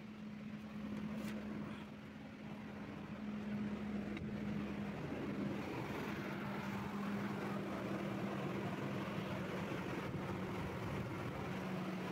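Nissan Patrol engine idling steadily, heard from under the open hood, growing louder about three seconds in.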